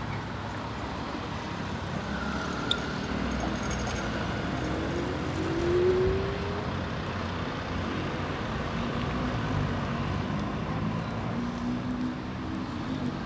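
Steady street traffic, with a vehicle passing close about six seconds in, its pitch rising as it goes by. A single short click about three seconds in.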